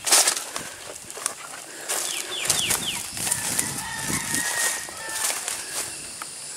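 Footsteps crunching through dry leaves and undergrowth, loudest in the first second. Birds call behind them: four quick falling chirps about two seconds in, then a long, even call lasting about two seconds.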